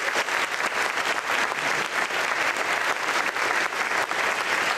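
Audience applauding steadily: dense hand-clapping from a concert audience at the close of a choral piece.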